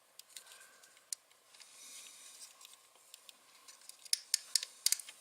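Plastic cable ties (tie wraps) being handled and pulled tight around a small camera and bracket: scattered small clicks and a brief rustle, then a quick run of sharper clicks about four seconds in as a tie is drawn through its ratchet.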